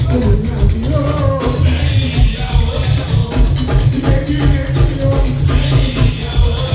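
Loud Fuji band music with a heavy pulsing bass and steady percussion, and a wavering voice or instrument line above it.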